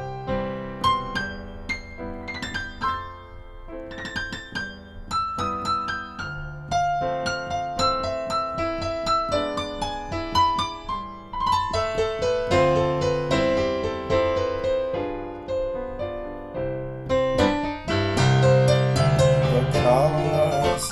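Yamaha digital keyboard played with a piano sound: an instrumental solo passage of a slow ballad, building to a fuller, louder run of notes near the end.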